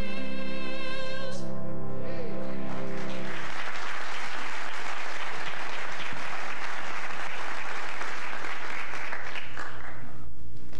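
The last held notes of a sung number with accompaniment end within the first few seconds, and a church congregation breaks into applause that lasts about six seconds and dies away near the end.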